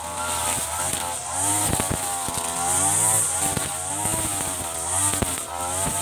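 Mitsubishi TU33 33 cc two-stroke brush cutter running at high speed while cutting tall grass, its engine pitch dipping and rising as it works through the grass, with sharp ticks of debris striking the guard.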